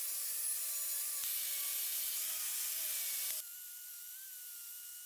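Angle grinder with a sanding disc running across a perforated metal plate: a steady motor whine over a loud grinding hiss. About three and a half seconds in, the sound drops in level and the whine jumps higher.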